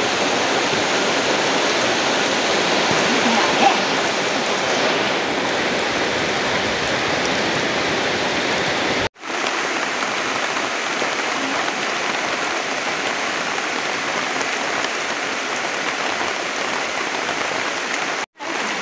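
Heavy rain falling steadily, an even hiss. It drops out completely twice for a moment, about halfway through and near the end.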